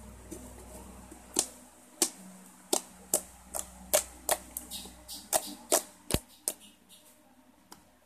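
Thick, milky glue-and-lotion slime being poked and pressed by fingers, giving sharp clicking pops of trapped air, about two a second, starting about a second and a half in.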